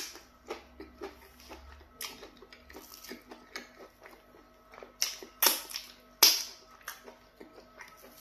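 Close-up eating sounds from a person eating pounded yam fufu with slimy okra soup by hand: many small wet mouth clicks and lip smacks while chewing. A sharp smack comes at the very start and a few louder ones come about five to six seconds in.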